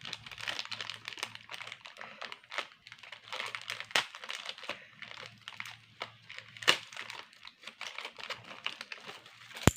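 Plastic packaging crinkling and rustling as it is handled, with irregular small clicks, a couple of sharper ones, and a loud click just before the end.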